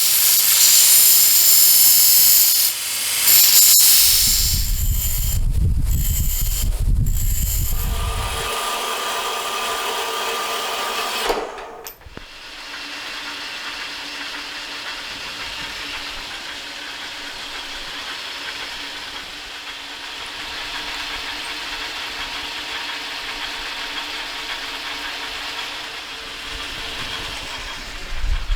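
Power tools working on metal: a loud hissing grind with a few short breaks for the first eleven seconds or so, then a quieter, steady machine running with a low hum until the end.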